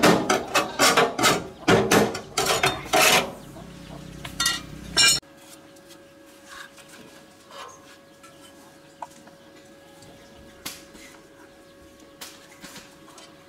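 Metal clanking and knocking, a few ringing strikes a second, as metal parts are struck or handled. About five seconds in it stops abruptly, leaving a faint steady hum with occasional light clicks.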